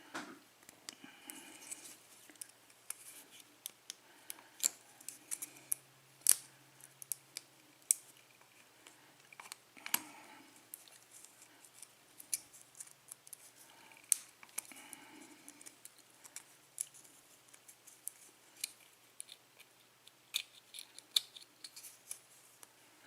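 Small metal clicks and scrapes at irregular intervals as tools work the retaining clip off a lock cylinder's plug.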